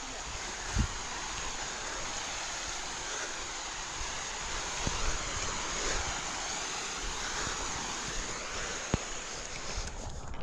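Steady rushing of a waterfall: creek water pouring over rocks, cutting off suddenly at the very end.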